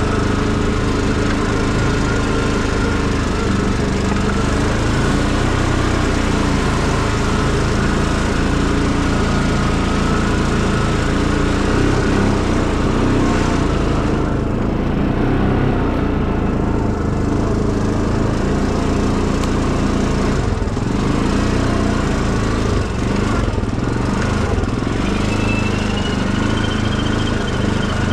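Small tractor engine running steadily at an even speed, with no break.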